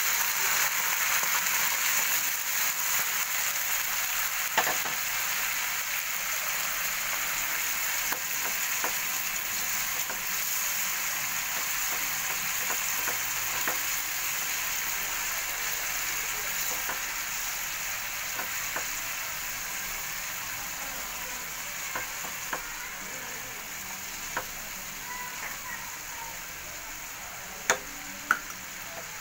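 Coconut milk sizzling in a hot frying pan over fried onion and ginger-garlic paste as it is stirred with a silicone spatula. The sizzle slowly dies down, with a few clicks of the spatula against the pan, most of them near the end.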